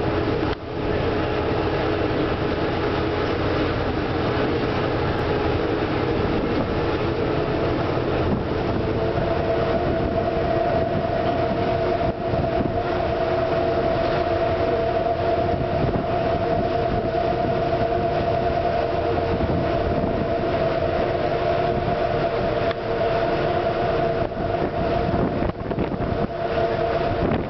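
Steady drone of a river boat's engine, heard from on board, with a steady hum that grows stronger about nine seconds in.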